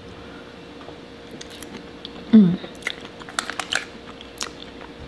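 Close-up mouth sounds of chewing a forkful of loaded baked potato with seafood-boil sauce: soft, wet chewing with small smacking clicks. About two seconds in comes a brief low vocal sound that falls in pitch, the loudest moment.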